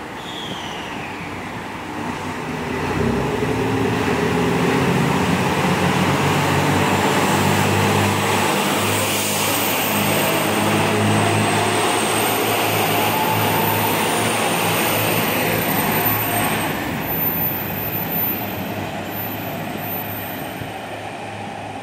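JR Shikoku 2700 series diesel multiple unit departing a station. Its diesel engines throttle up about two seconds in and run loudly as the cars roll past, then the sound fades as the train pulls away.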